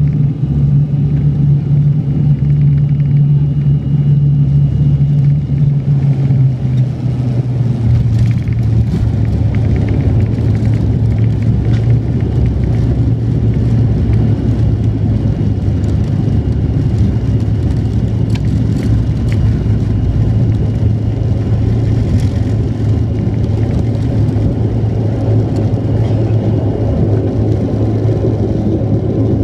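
Cabin noise of a turboprop airliner landing: a loud, steady propeller drone drops in pitch about seven seconds in as power comes off, followed by a rougher rumble as the wheels roll out on the gravel runway.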